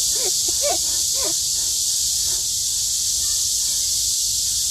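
A person makes a few short, strained vocal grunts in the first second and a half, as if straining at a pull-up bar, over a steady high hiss.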